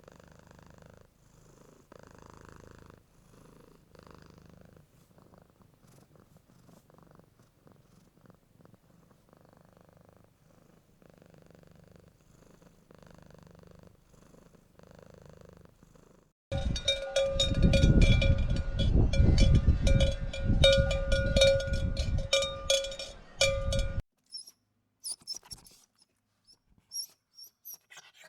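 Faint cat purring in slow, even pulses. About two-thirds of the way in it cuts abruptly to a much louder low rumble with a steady hum over it, lasting about seven seconds and stopping suddenly. A few small clicks follow.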